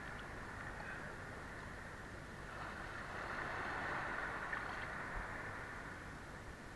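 Faint, muffled sloshing and rumbling of shallow sea water around a wader's legs, steady and slightly louder in the middle.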